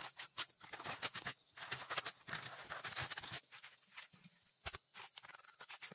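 A small steel trowel scraping and tapping on wet cement mortar: a run of quick clicks and scrapes, with a longer spell of scraping in the first half, then sparser taps and one sharp knock later on.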